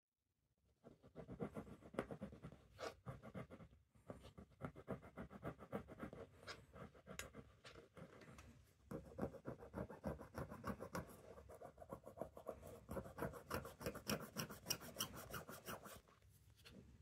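Pointed wooden stick scraping rust and dirt off a stainless steel watch case: a quick run of short scratching strokes that starts about a second in, with brief pauses at about four and eight and a half seconds.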